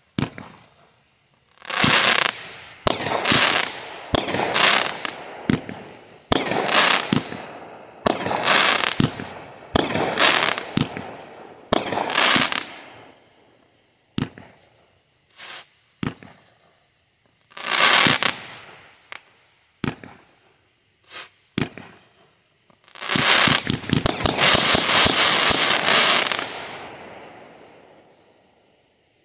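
Brothers Pyrotechnics 'Light Brigade' 350-gram fireworks cake firing shot after shot: sharp bangs about a second apart, each trailing off in a wash of crackle. A few lone pops come in a lull midway, then a dense closing volley dies away near the end.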